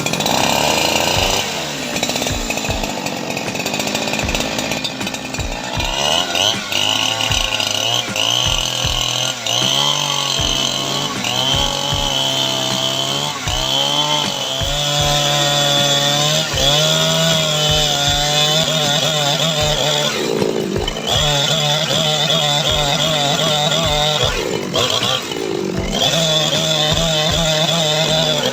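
Two-stroke chainsaw running at full throttle and cutting wood. Its engine note dips and recovers as the bar bites into the log, and the engine eases off briefly twice late on.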